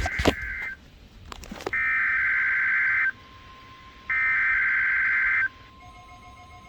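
NOAA Weather Radio SAME digital header: identical warbling data bursts of a little over a second each, the first ending just inside the start and two more following about a second apart, marking the start of the Required Weekly Test. A faint steady tone runs under them from about a second in, and near the end a set of steady and pulsing alert tones sets in.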